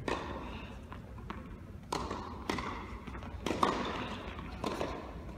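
Tennis ball bounced on an indoor hard court by a player before serving: several sharp thuds at uneven spacing, each echoing in a large hall.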